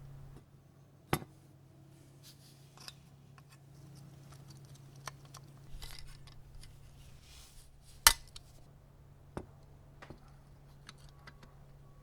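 Sharp clicks and taps of small hard parts and tools being handled, the two loudest about a second in and about eight seconds in, with soft rustling between them over a steady low hum.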